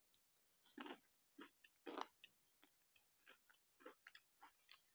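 Faint chewing of a bite of kajada, a deep-fried sweet wheat-flour snack that is crisp outside and soft inside: a handful of soft crunchy chews, the clearest about one and two seconds in.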